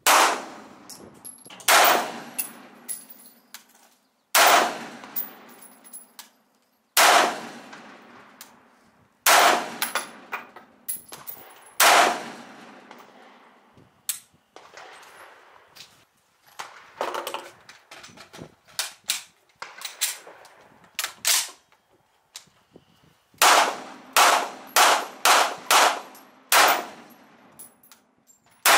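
Gunshots from a Swiss Arms PE 90, the semi-automatic SIG 550 rifle in 5.56x45 mm NATO, each with a sharp crack and a ringing tail. Single shots come every couple of seconds, fainter shots follow in the middle, and a quicker string of about half a dozen shots roughly half a second apart comes near the end.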